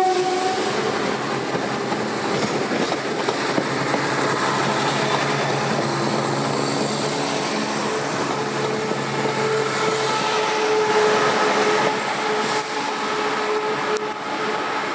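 Diesel train running at a platform, a steady engine drone with a faint whine, with the end of a horn blast cutting off right at the start.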